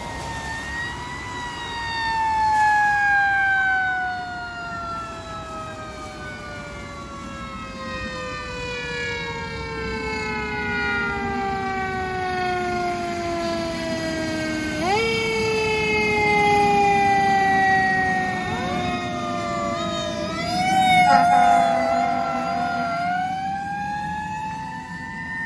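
Fire engine siren wailing: one long tone falling slowly in pitch for about fourteen seconds, pushed back up about 15 seconds in, then a few quick rises and a brief warble around 20 seconds before climbing again near the end.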